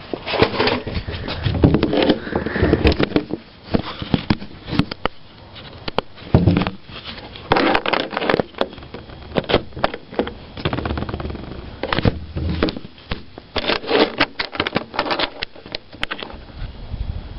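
Irregular clicks, knocks and scuffs of a socket wrench and torque wrench being worked on a motorcycle's rear axle nut, with a few quick runs of clicking.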